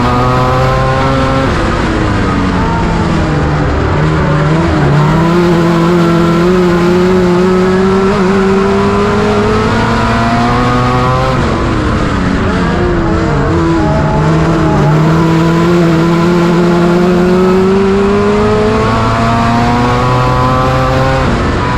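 A race car engine heard close up under hard throttle on a short track. Its pitch climbs steadily down each straight, then falls off sharply three times as it lifts into the turns, about ten seconds apart.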